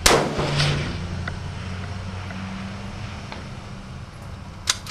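A single shot from a Ruger Precision Rifle in 6.5 Creedmoor, loud and sharp, echoing and dying away over about a second. A couple of short sharp clicks come near the end.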